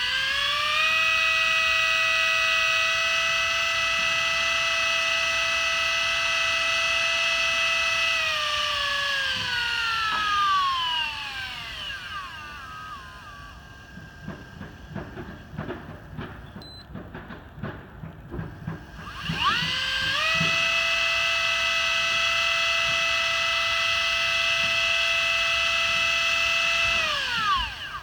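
Daiwa Seaborg 200J electric reel's motor running: a high whine climbs quickly, holds steady for about eight seconds, then winds down in pitch. A quieter stretch follows with faint irregular clicking and one short high beep. The motor then spins up again, runs steady, and winds down near the end.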